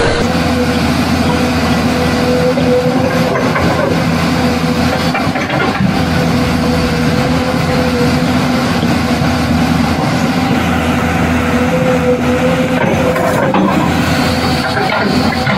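Truck engine sound running steadily with a constant hum, no revving or change in pitch.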